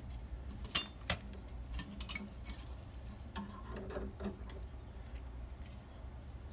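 Small steel bolts clicking and clinking against the aluminium fork lower of a 1977 Kawasaki KZ400 as they are fitted and threaded in by hand. A few sharp clicks in the first couple of seconds and a brief light ring a little later, over a low steady hum.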